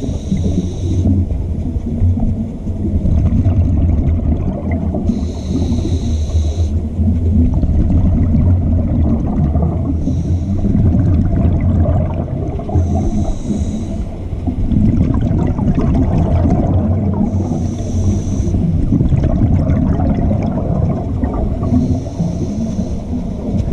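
Scuba diver breathing through a regulator underwater: a hiss on each inhale, six times, every four or five seconds, over a steady low rumble and bubbling of exhaled air and water.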